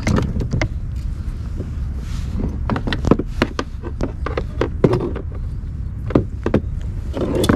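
Sharp knocks and taps of a mackerel and a plastic measuring rule being handled against a plastic sit-on-top kayak. They come in a scattered run from about two and a half seconds in, over a steady low rumble.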